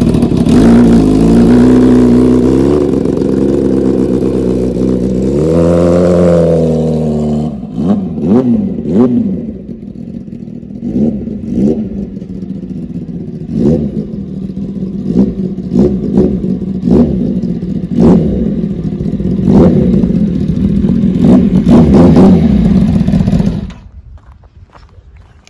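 Kawasaki ZX-10R's inline-four engine running with a trumpet fitted in place of its exhaust, revved first in a few longer swells and then in many short throttle blips about once a second. It is switched off suddenly near the end.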